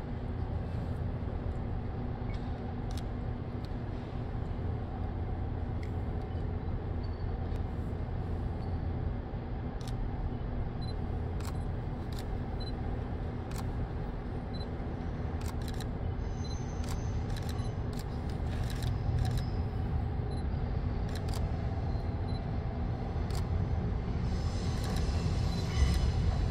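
Steady hum of an electric train standing at a station platform, with scattered camera shutter clicks. Near the end a higher squeal sets in as train wheels start to squeal.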